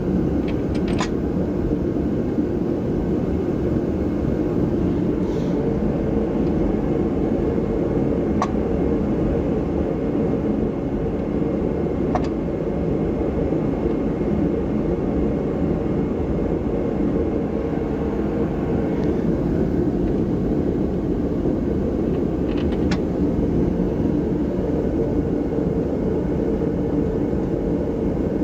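Steady low rumbling background noise, with a handful of sharp metal clinks spaced several seconds apart as the wheel hub and rotor are handled and fitted onto the truck.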